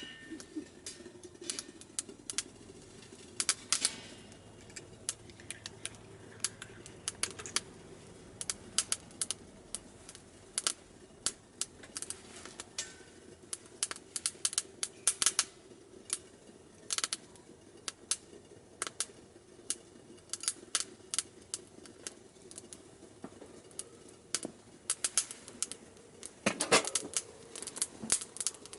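Fire burning in a CAPTAIN STAG KaMaDo Smart Stove Delta, crackling with irregular sharp pops from burning wood. A denser run of louder pops comes near the end.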